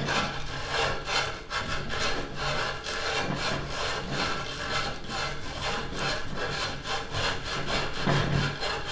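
A strip of sandpaper rubbed back and forth around the cut end of a copper pipe, a dry scraping in quick repeated strokes, about two or three a second. The end is being scoured to bright metal so the solder will bond when it is sweated into a coupling.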